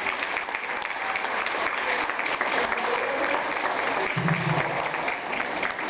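Audience applauding steadily between ballroom dances.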